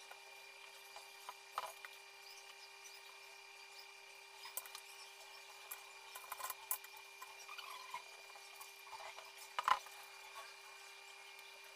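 Faint scattered clicks, taps and rubbing of hands and tools handling the cake, the loudest a knock near the end, over a faint steady hum.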